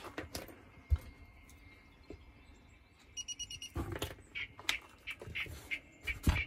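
Telemetry equipment being handled in a foam-lined hard case, with knocks and clicks. A little after the midpoint comes a quick run of about six high electronic beeps as the tracking gear is switched off.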